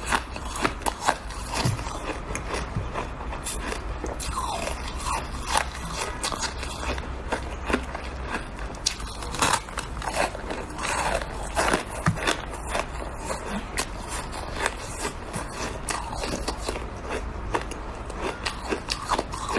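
Shaved ice being bitten and chewed close to the microphone: a run of sharp, irregular crunches and crackles, with scraping between them. A steady low hum sits underneath.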